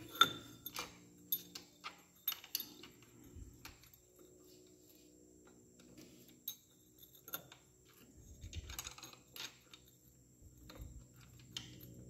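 Light metal clinks and ticks of a wrench and a long steel lever bar being worked on a motorcycle engine's gear nut to loosen it. The sharpest click comes just after the start, with a short cluster of clinks and scrapes about nine seconds in.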